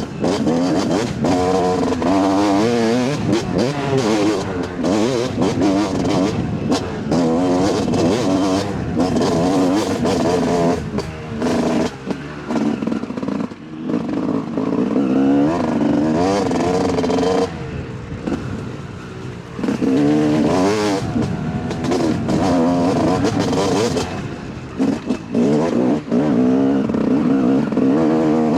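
Yamaha YZ250 two-stroke dirt bike engine being ridden hard, its pitch climbing and falling as the throttle is opened and rolled off through the gears, with short lulls off the throttle about halfway through and again near the end.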